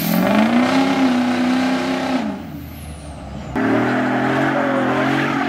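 Pickup truck engine revved up and held at high revs for about two seconds, then let back down. A second high, steady rev starts abruptly just past the middle.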